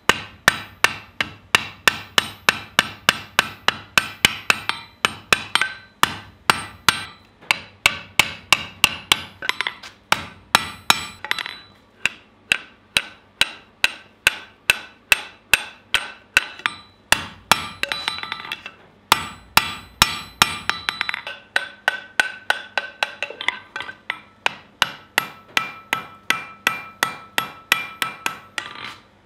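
Hand hammer forging red-hot angle iron on an anvil: a steady run of blows, about three a second, each ringing off the steel, with a few short breaks.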